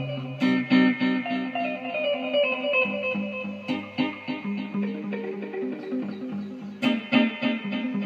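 Background music led by plucked guitar over a bass line.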